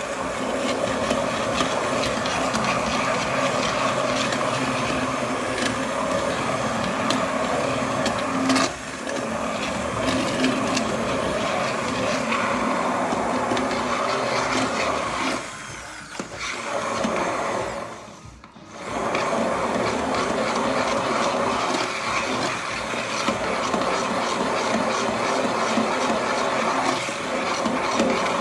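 Hand-held immersion (stick) blender running in a steel pot of cooked pumpkin soup, pureeing it smooth. There is one sharp knock about nine seconds in. The motor eases off and cuts out briefly about two-thirds of the way through, then runs again.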